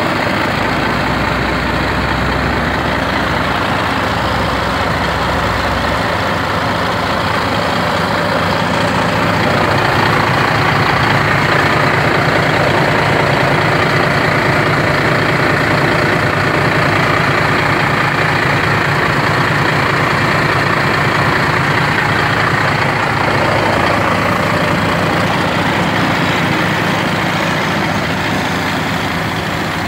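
Volvo FH16 550 truck's 16-litre inline-six diesel idling steadily, a little louder from about ten seconds in until a few seconds past twenty, while heard from under the chassis.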